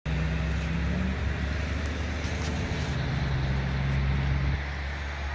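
Steady low rumble of outdoor street traffic, with a low engine-like hum running under it.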